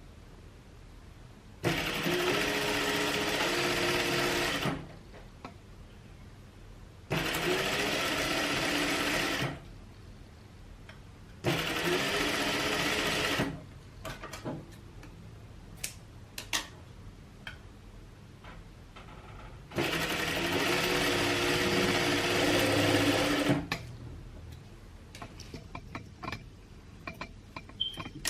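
Sewing machine stitching in four runs of two to four seconds each, a steady whir with short pauses between, sewing a quarter-inch seam to attach piping to a sleeve's raw edge. Light clicks in the pauses.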